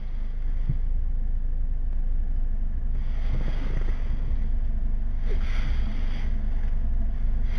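Steady low rumble of a stationary car with its engine idling, heard inside the cabin through a dashcam's built-in microphone. Twice a wash of hiss swells up briefly and fades.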